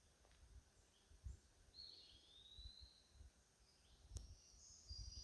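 Near silence in woodland: a few faint, high bird calls, one gliding call about two seconds in and another near the end, over irregular low bumps and a single click.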